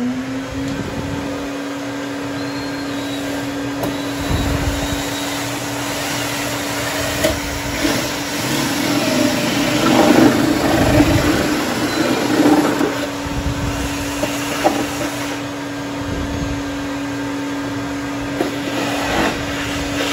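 Shop vacuum running steadily at the drilling spot, with a cordless drill boring through the fiberglass kart seat; the drilling is loudest and roughest about eight to thirteen seconds in.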